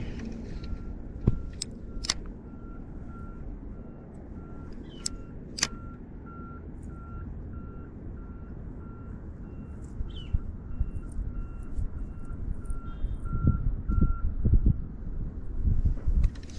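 A vehicle's reversing alarm beeping at an even pace, a steady string of short high beeps that stops about fifteen seconds in. Beneath it is wind rumble on the microphone, with a few sharp clicks early on from handling the fishing rod and reel.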